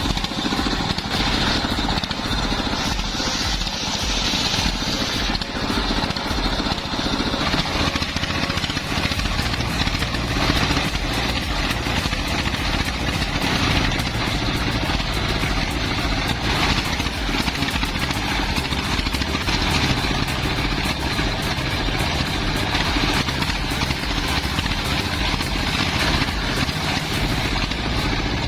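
Engine-driven firewood-processing machinery running steadily, a continuous engine drone with mechanical noise. About 8 s in, the highest sounds thin out.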